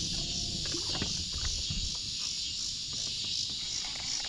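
Steady, high-pitched chorus of insects, with a few faint low knocks in the first couple of seconds.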